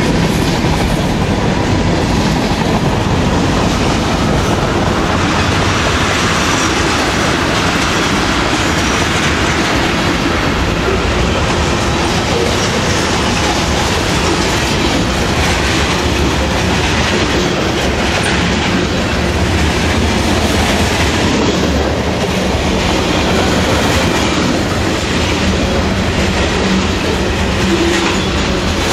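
Freight train's covered hopper and tank cars rolling past close by: steel wheels clicking over the rail joints in a steady, loud rumble.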